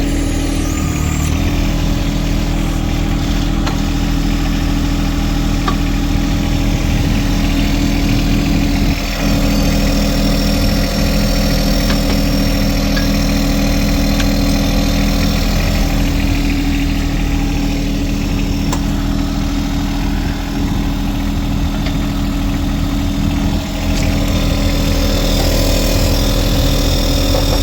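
John Deere tractor engine running steadily at idle.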